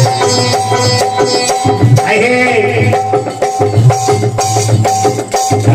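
Folk dance music played live: a hand drum beating a steady rhythm under a melody of held notes.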